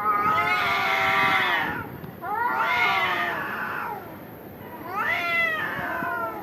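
Cats yowling during a fight standoff: three long, drawn-out caterwauls that waver in pitch, with short pauses between them.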